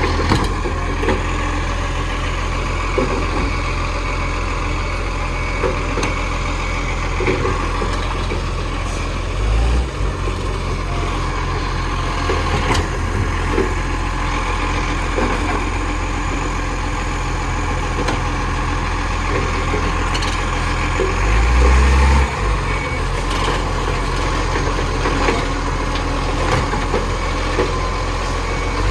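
Dennis garbage truck's diesel engine running at idle with a steady low hum, briefly revving up about ten seconds in and again around twenty-two seconds in. A reversing beeper sounds faintly near the start and end.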